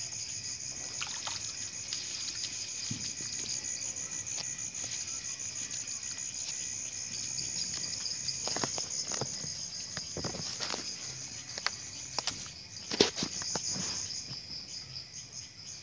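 Night insects trilling in a steady, rapidly pulsing high chorus. From about halfway in there are scattered sharp knocks and rustles as a small fish taken on the hand line is handled on the ground, the loudest knock a little before the end.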